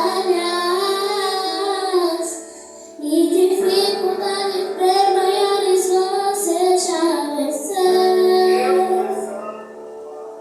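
A worship song: a high solo voice singing long, sustained phrases over steady held chords from a keyboard. The voice sings three phrases with short breaks between them, and the sound drops lower near the end.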